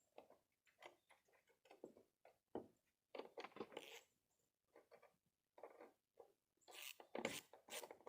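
Faint, irregular clicks and scrapes of a wrench and socket working a metal bracket bolt on a roof gutter, getting busier near the end.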